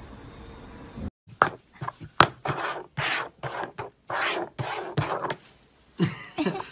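Upturned plastic cups slid and shuffled over a plastic tabletop in a shell game: a quick, irregular series of short scrapes.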